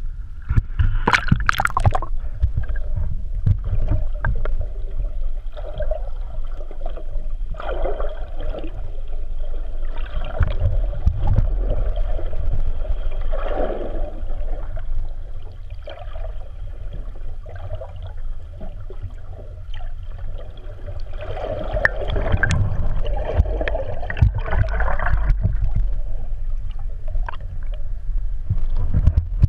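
Muffled water noise from a camera held just below the sea surface: a steady low rumble with swelling gurgles and scattered clicks and knocks as water moves around it.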